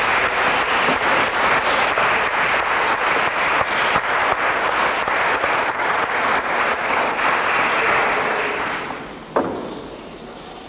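Audience applauding steadily, then dying away about nine seconds in, with a single sharp knock as it fades.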